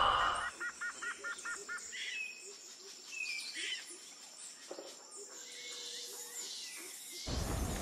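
Woodland birds calling: a quick run of six chirps about half a second in, then scattered short falling whistles and soft chirps. Near the end a rush of noise comes in.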